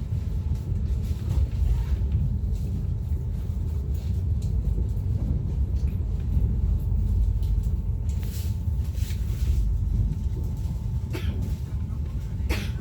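Steady low rumble of a moving passenger train heard from inside the carriage. A faint steady whine joins about halfway through, and a few brief rustling noises come near the end.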